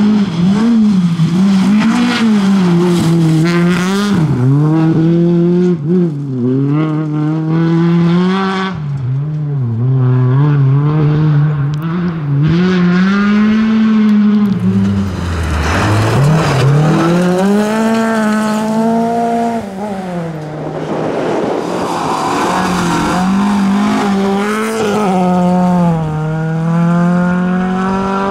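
Tuned Volvo rally car engine run hard, its pitch climbing and falling again and again through gear changes and lifts, with a deep drop about halfway through before it pulls up again.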